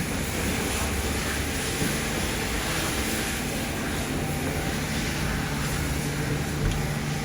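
Tata Nexon on the move: steady engine and road noise with a low rumble.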